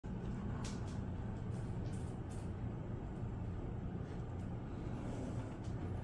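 Steady low background rumble with a few faint clicks.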